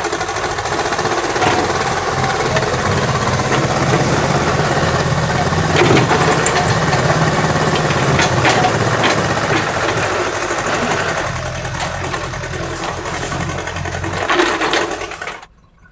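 Diesel engine of a JCB 3DX backhoe loader running steadily, with scattered knocks and clatter over the engine noise. The sound cuts off abruptly near the end.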